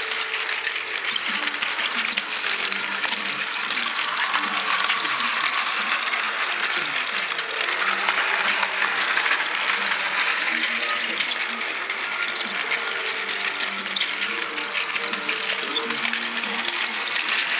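Motorized toy trains, a Thomas engine hauling a D51 model locomotive, running on plastic track: a steady gearbox whir with rapid fine clicking and rattling.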